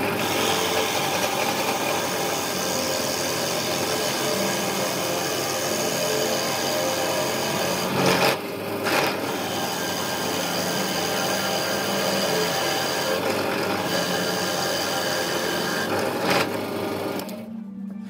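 Electric drill motor running steadily as a Forstner bit bores a large hole into a thick wooden beam, with a steady motor whine. There are two brief louder bursts about halfway through, and the motor stops shortly before the end.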